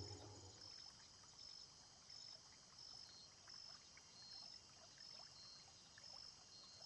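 Near silence: faint room tone with a light hiss, after a music tail fades out in the first half-second.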